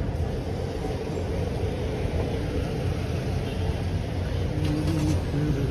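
Steady street noise of idling and passing cars, deep and continuous, with a few faint voices.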